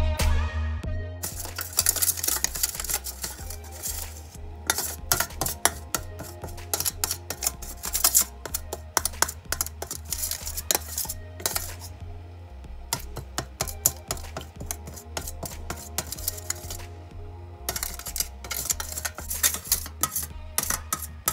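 Metal spoon stirring a liquid oil mixture in a stainless steel bowl, clinking and scraping against the bowl many times in an irregular run, over background music with a low bass pulse.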